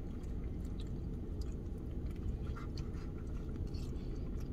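People chewing food, with scattered small clicks from a plastic fork and takeout box, over a steady low rumble inside a car.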